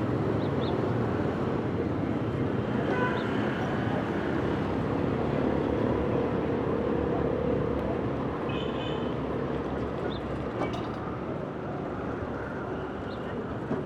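Steady city street ambience: a dense low rumble of traffic and passing crowd, with a few faint, short high sounds over it.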